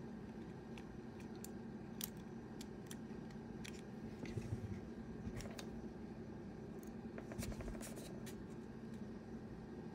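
Faint, scattered small clicks and light rubbing of plastic parts as a drone battery's cell pack and circuit board are worked out of its plastic shell by hand, with a cluster of clicks near the end, over a steady low hum.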